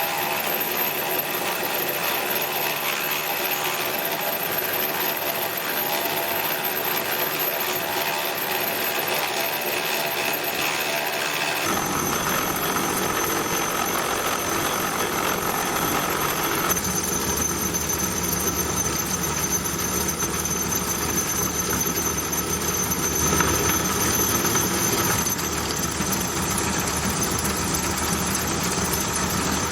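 Home-built Gingery milling machine taking a 2 mm cut in an aluminium jaw: the motor and cutter run steadily with a high whine. About twelve seconds in, the sound changes abruptly and a deeper rumble joins.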